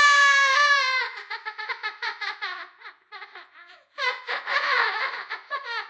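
A child laughing hard. It opens with a high-pitched squeal held for about a second, then runs into rapid bursts of laughter, breaks off briefly about three seconds in, and rises into a louder, breathier fit of laughter about four seconds in.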